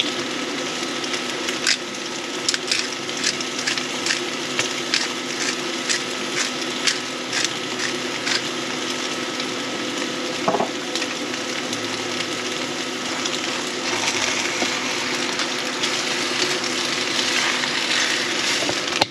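Bacon, onions, noodles and eggs frying in margarine in a pan: a steady sizzle with irregular crackles and pops through the first half, growing to a denser hiss near the end, over a steady low hum.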